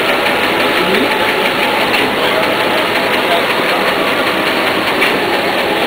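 Continuous-feed production printing and roll-to-stack finishing line running at full speed: a loud, steady machine noise with a fast, even clatter as the paper web feeds through.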